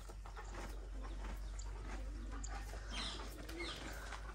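Horse chewing a mouthful of fresh green fodder, a run of small crunching clicks, with small birds chirping around it; one clear falling chirp about three seconds in.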